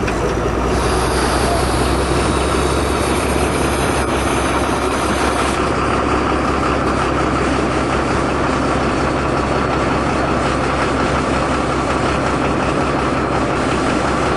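Large diesel engine running steadily: a low, even hum under a constant rush of noise.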